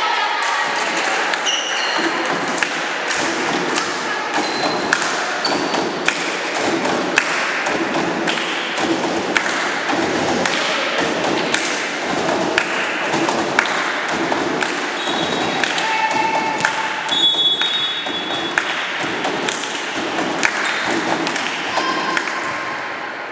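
Volleyball hall sounds: many sharp thuds and claps, roughly two a second, over a steady hubbub of voices, echoing in the big gym hall, with a few short high squeaks.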